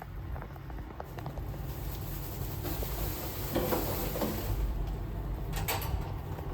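Steady low rumble of a car cabin on the move, with a couple of short clicks about five and a half seconds in.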